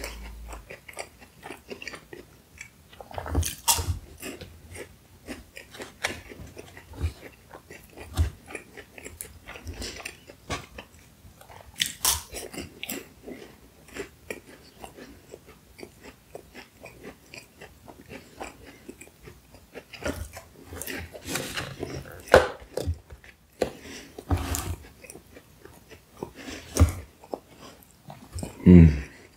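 Close-miked chewing and biting of baklava, its flaky phyllo pastry crunching and crackling in the mouth at an irregular pace. Louder crunches come now and then, the loudest near the end.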